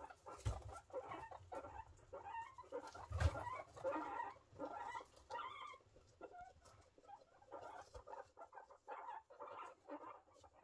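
Guinea pig sow and newborn pups making many short squeaks and soft clucking chutters, with light rustling in the hay bedding and a couple of low bumps in the first few seconds.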